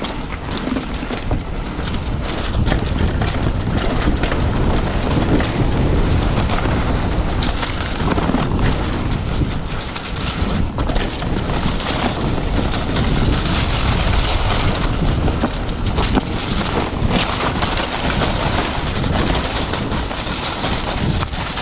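Wind rushing over the microphone and tyres rolling on a dirt trail as a full-suspension mountain bike is ridden, with scattered clicks and knocks from the bike over bumps.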